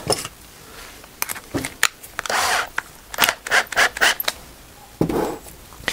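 Bits and pieces being handled on a wooden workbench: a run of sharp clicks and taps with a short scrape partway through.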